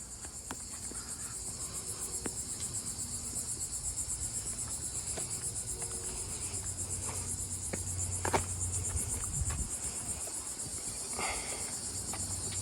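Insects chirring outdoors in a steady, high, rapidly pulsing buzz, with a few faint clicks underneath.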